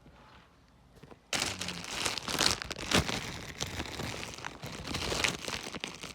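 Plastic bag packaging crinkling and rustling as it is handled, starting suddenly about a second in and going on with many sharp crackles.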